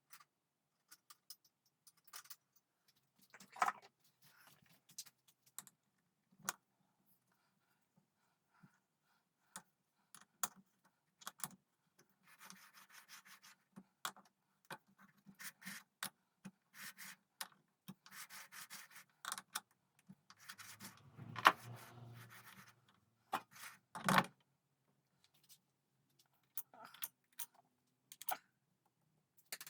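Hand work on a workshop piece: intermittent scraping and rubbing strokes broken by scattered light clicks and knocks, with a couple of sharper knocks about two-thirds of the way through.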